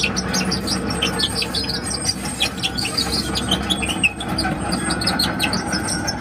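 Hitachi ZX130-5N crawler excavator travelling on its steel tracks: the diesel engine runs steadily under a rapid, irregular squeaking and clinking from the tracks.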